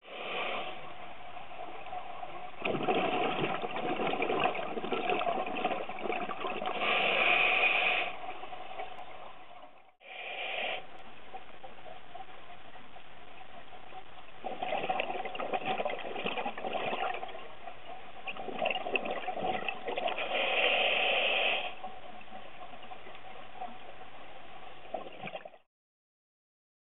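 Underwater recording of a scuba diver's regulator: a steady muffled hiss, with long, louder rushes of exhaled bubbles at intervals. The sound drops out briefly about ten seconds in.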